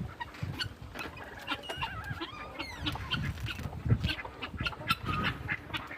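Farmyard poultry calling, a busy jumble of many short honks and clucks with clicks and low bumps in between.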